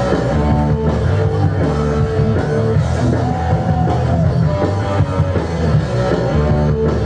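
Loud music with heavy drums and a thick bass line, with melodic lines on top.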